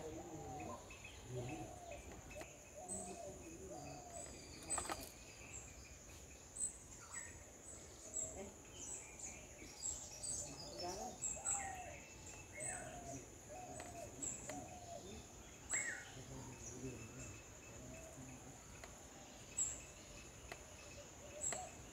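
Faint garden ambience: a steady high-pitched insect drone with scattered short bird chirps.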